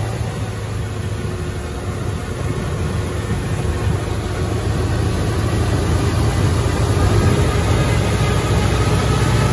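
Old military jeep's engine running under way, with a steady low drone that grows louder over the second half as the jeep accelerates, heard from inside the open cab.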